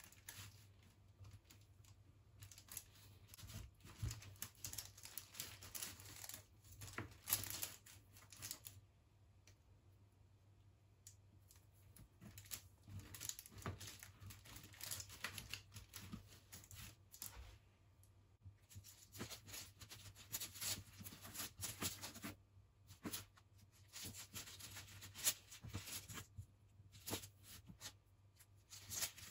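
Sharp kitchen knife cutting through a chilled slab of set chocolate over a peanut filling, the hard chocolate crackling under the blade. Faint uneven spells of crackling and scraping, with a few short pauses.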